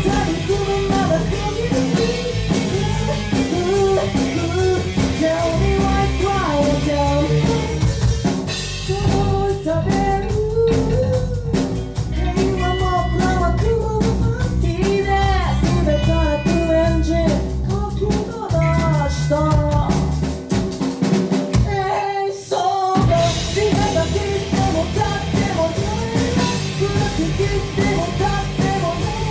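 A live rock band of electric guitar, bass guitar and drum kit playing with a singer. The full band thins out to a sparser passage for a while, breaks off for a moment near the middle, then comes back in full.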